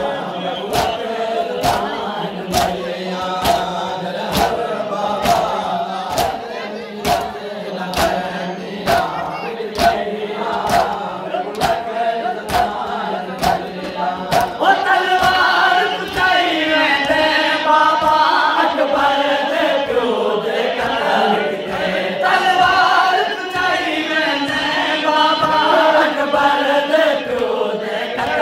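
A crowd of men chanting a noha together while doing matam: sharp hand slaps on chests about two a second. About halfway through the slaps fade and the group chant grows louder and more sung.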